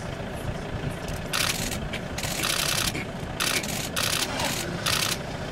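A vehicle engine idling low and steady, with about six short bursts of hiss in the middle stretch, the loudest sounds present.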